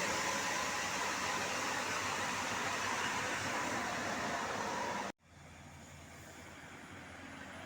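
Road traffic noise: a steady rush of vehicle engine and tyre sound, which cuts off abruptly about five seconds in and gives way to a quieter traffic hum.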